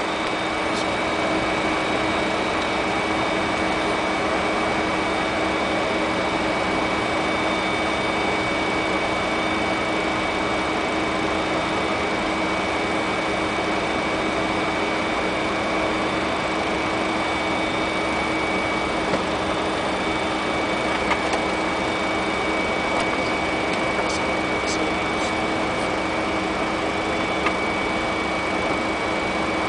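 Steady flight-deck noise of a Fokker 100 airliner in flight: an even rush of air with a few constant hums and whines, and a few faint clicks in the second half.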